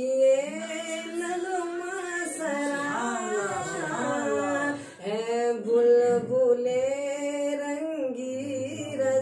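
A man singing a naat (Urdu devotional poem in praise of the Prophet) unaccompanied, holding long ornamented notes, with a short breath about five seconds in.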